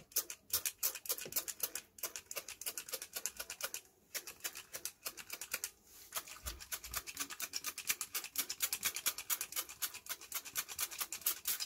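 Trigger spray bottle pumped over and over, short scratchy squirts that turn into a quick regular rhythm of about five a second in the second half. The sprayer is not working properly.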